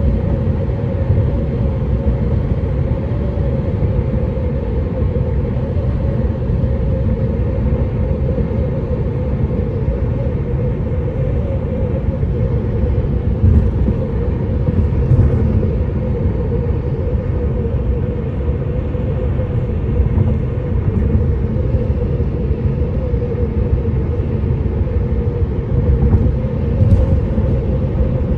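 Steady road rumble and tyre noise heard from inside the cabin of a moving car.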